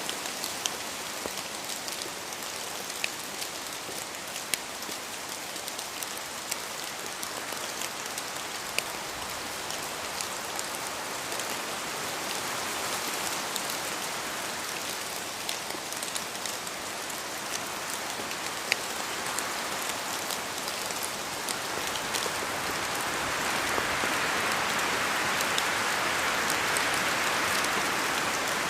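Steady rain in a forest, an even hiss with scattered sharp drips of drops falling from the trees. The hiss swells louder over the last several seconds.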